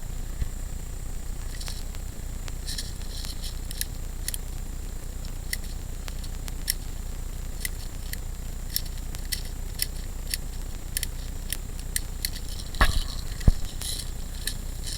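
Scattered sharp clicks and snaps at irregular intervals over a steady low rumble, with a louder cluster of knocks near the end.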